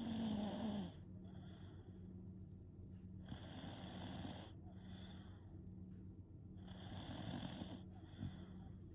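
Shiba Inu snoring in its sleep: three long snores about three and a half seconds apart, each followed by a shorter, softer breath; the first snore carries a falling tone.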